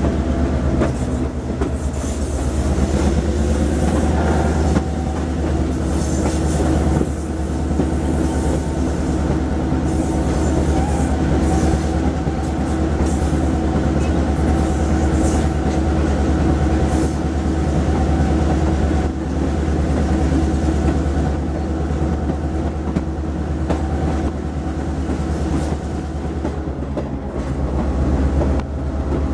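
Diesel-hauled passenger train running along the track: a steady engine hum under the clatter of wheels on the rails.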